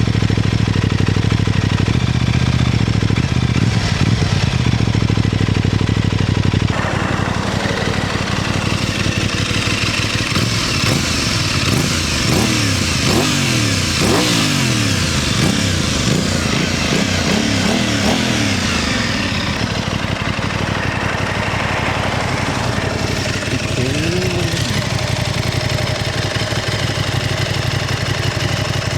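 Aprilia RS660 Extrema's parallel-twin engine running steadily at low revs, then, after a sudden change about seven seconds in, its pitch rising and falling repeatedly as it revs and settles.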